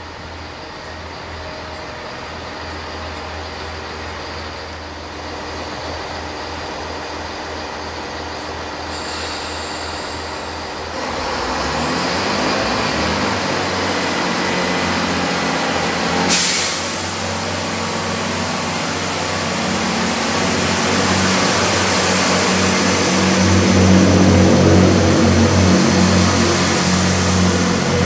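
Class 166 diesel multiple unit running into the platform and braking, its diesel engines growing louder as it draws alongside. A thin brake squeal rises in pitch part way through, followed by a short sharp hiss of air.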